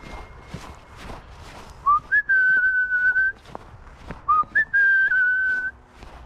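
A person whistling two short phrases, each a quick low note sliding up into a higher note held for about a second. Footsteps on frosty grass keep time underneath.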